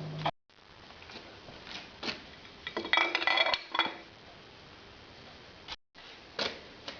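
Metal tools and engine parts clinking and rattling as they are handled, with a busy run of clinks about halfway through.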